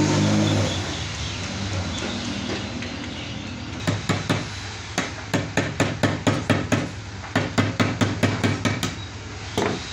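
Hammer driving nails into a wooden board: runs of sharp blows, about three a second, from about four seconds in, with a last single blow near the end. A steady machine drone fades out over the first second.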